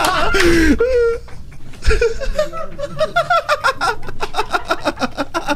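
People laughing hard, breaking into fast, even pulses of laughter from about halfway through.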